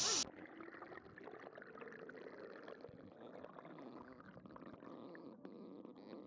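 Open-air sound cuts off suddenly just after the start as the camera goes under the surface of a clear spring-fed river. Faint, dull underwater noise with no highs follows.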